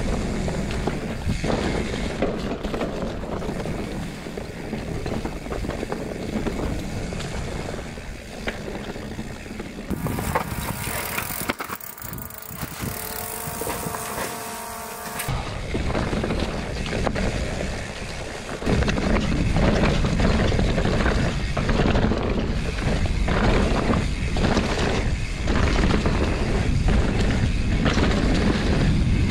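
Mountain bike riding fast down a dirt trail: heavy wind rumble on the microphone, with tyres and the bike rattling over dirt and leaves. About ten seconds in this gives way for some five seconds to a steady whine with hiss, a drone's propellers, then the riding noise returns and gets louder and heavier a few seconds later.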